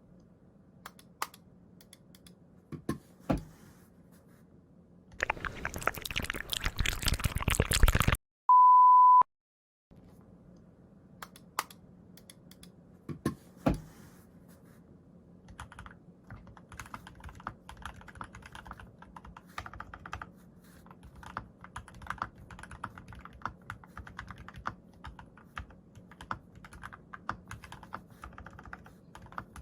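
Typing on a custom Glorious GMMK mechanical keyboard with lubed Alpaca V2 linear switches and PBT keycaps, which has a clacky sound. A few single keystrokes come first, then a quick flurry of key spamming, then a brief steady beep. After more single presses, continuous typing fills the second half. A faint steady electrical buzz runs underneath.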